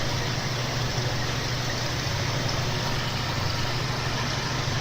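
CNC Master milling machine cutting 4142 prehardened steel: a steady low hum from the spindle with an even hiss of the cut, unchanging throughout.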